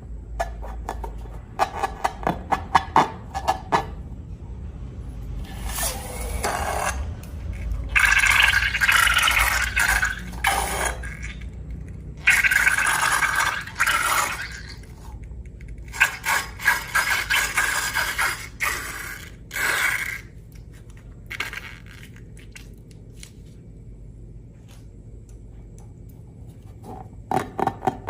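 Slime-making ASMR sounds: a run of light clicks, then repeated scraping in stretches of a few seconds each, with quieter gaps between them.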